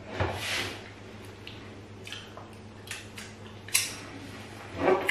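Eating by hand at a table: scattered soft clicks and wet smacks of hands and mouths on rice ball and soup, with a breathy rush near the start and one sharp click just before four seconds in.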